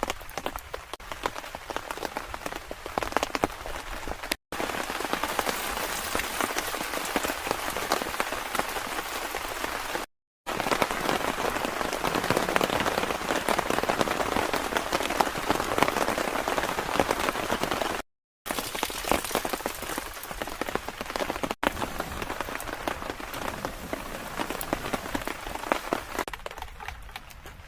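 Rain falling steadily, with many separate drops ticking on a surface. It is heavier in the middle stretch and lighter near the end, broken into several pieces by sudden short silences where the clips are joined.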